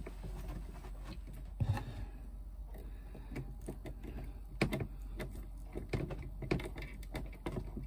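Scattered small clicks and rustles of hands handling an earth cable and its connector at the terminals of an electrical board, over a faint steady low hum.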